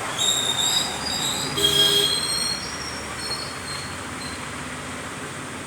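A high-pitched squeal made of several steady tones, shifting to a different pitch about a second and a half in and fading away by about four seconds.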